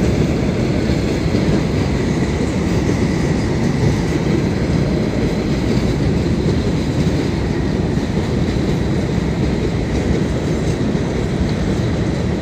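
Train passing close by: a loud, steady rumble of wheels on the track that does not let up.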